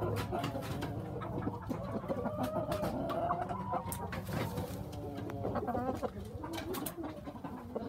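Chickens making low clucking and cooing calls, with many scattered sharp clicks.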